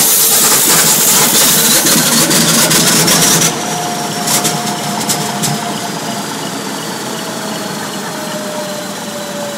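Large Duvant diesel engine starting. A loud rushing hiss with a rising whine cuts off abruptly after about three and a half seconds. A few sharp clicks follow, then the engine runs more quietly with a whine that slowly falls in pitch.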